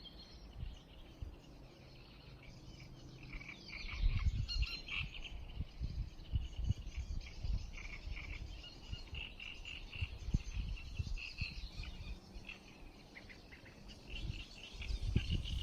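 Waterside ambience: a faint, continuous chatter of short high-pitched bird chirps, with irregular low rumbles that grow louder from about four seconds in.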